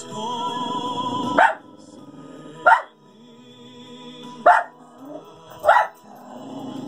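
A dog barking four times, single sharp barks a second or two apart, over soft music playing from a television.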